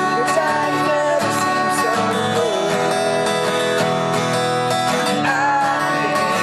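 Acoustic guitar strummed and picked, playing a song.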